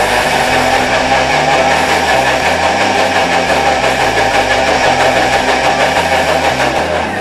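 Thermomix food processor running at top speed 10 with only water in the jug, spinning it to clean the bowl: a loud, steady motor whir that cuts off right at the end.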